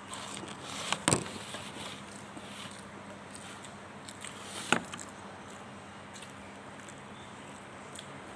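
Close-miked eating of fried sushi: quiet chewing with a few sharp crunches, one about a second in and another just before the five-second mark.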